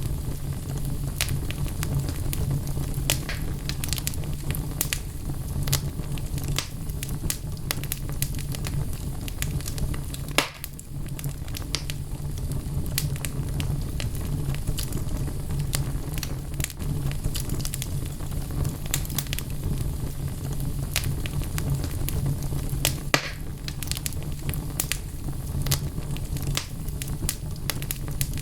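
Wood logs burning in a fireplace, crackling with irregular pops and snaps over a low, steady rumble of flame.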